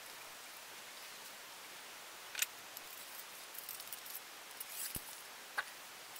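A cleaning rod worked through a rifle's suppressor tube: a few scattered light clicks and scrapes over a faint steady hiss.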